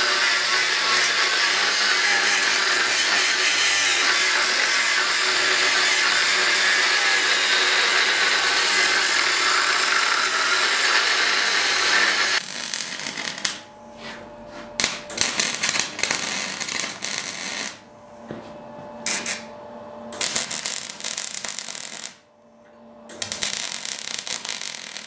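Angle grinder grinding steel, a loud steady grind for about twelve seconds that then stops sharply. After it comes electric arc welding in uneven bursts, starting and stopping several times.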